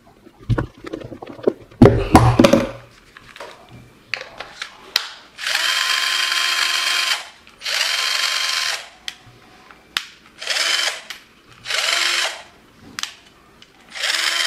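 Bosch GSR 120-LI cordless drill's replacement DC motor run with no load in short trigger pulls: a steady whine in about five bursts of one to two seconds each, starting about five seconds in. Before that, clicks and knocks as the drill is handled.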